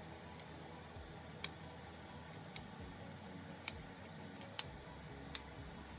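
Hair straightener (flat iron) plates clicking shut as it clamps and slides along sections of hair: five sharp clicks about a second apart, over faint background music.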